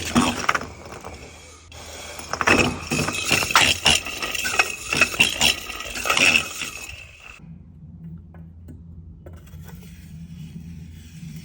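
Irregular metallic clinks and rattling for about seven seconds, which stop suddenly, leaving a faint low steady hum.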